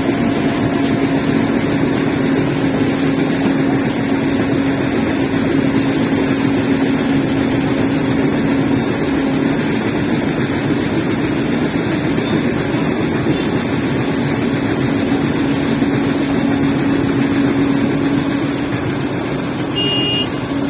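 Hyundai 140 excavator's diesel engine running steadily under load, with a steady humming tone over the engine noise that eases a little about halfway through.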